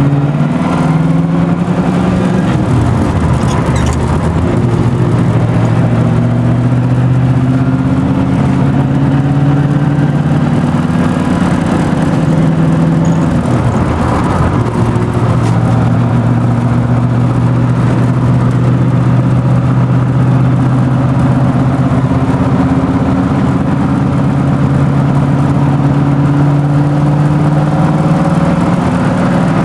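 Car engine running steadily under way. Its pitch drops and climbs back twice, a few seconds in and about halfway through.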